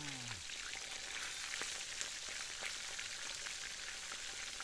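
Fish frying in hot oil in a wok: a steady sizzle with scattered small crackles and pops.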